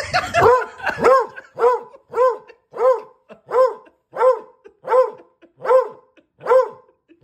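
A medium-sized dog barking in a steady, evenly spaced series, about eleven barks at roughly one and a half a second. These are frustrated demand barks in a play bow, aimed at a cat that is keeping his ball from him.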